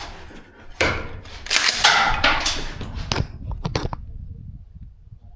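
Rifle shots fired during a timed course of fire, each a sharp bang with a smeared tail: one about a second in, a tight cluster around two seconds, another near three seconds, followed by a few quick lighter clicks.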